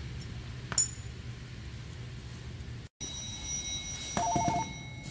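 Steel suspension parts and bolts clinking against each other as they are handled, over a steady low shop hum. A sharp clink comes about a second in, and a quick rattle of metal near the end.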